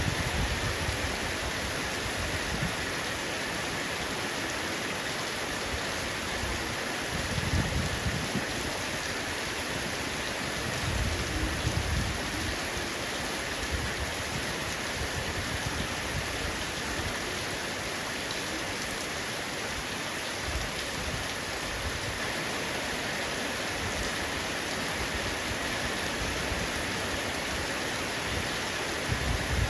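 Heavy rain falling steadily on a roof, an even hiss of drops, with brief low swells about seven and eleven seconds in.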